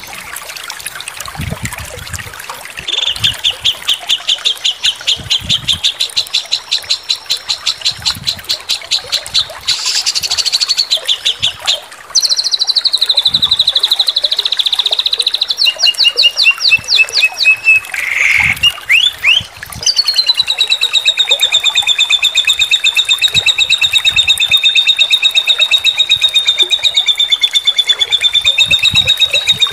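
Songbird song: a long run of sharp, evenly repeated notes a few per second, then quick trills that shift and drop in pitch. Past the midpoint comes a long, very fast trill held at one pitch.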